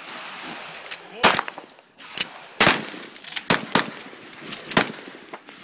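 Gunfire from several guns shooting at once, about eight shots at uneven spacing, some in quick pairs.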